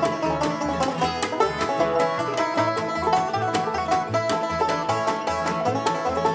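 Bluegrass band playing an instrumental passage: banjo picking to the fore over an upright bass walking a steady beat and a strummed acoustic guitar.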